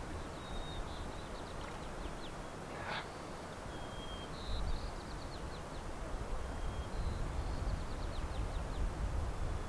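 Small bird calling: short, high whistled notes and quick runs of ticking chirps, repeated several times, over a low rumble.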